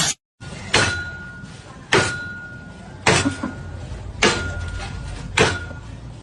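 Five sharp bangs, evenly spaced about a second apart, each leaving a faint high ringing tone as it dies away.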